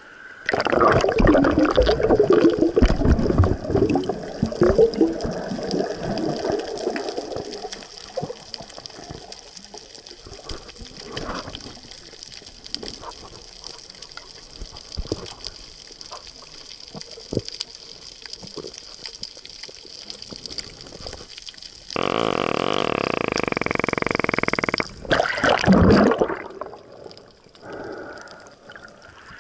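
Underwater water noise at a snorkeler's camera: loud churning bubbles and gurgling for about seven seconds, then quieter scattered clicks and crackles. Later a steady humming tone lasts about three seconds and cuts off abruptly, followed by another short burst of bubbling.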